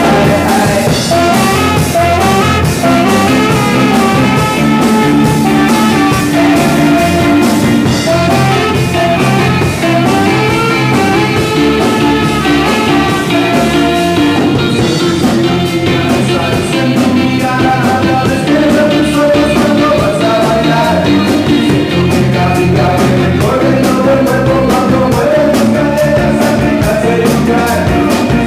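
A rock band playing a fast ska-rock song with a singer and a steady drum beat.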